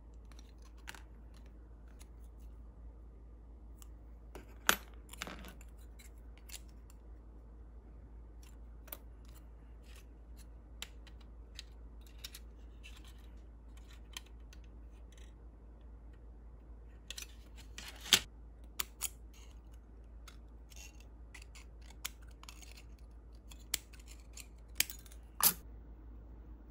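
Small clicks and taps of a thin metal sheet and plastic model parts being handled and bent, with a few sharper ticks about five seconds in, near the middle and near the end.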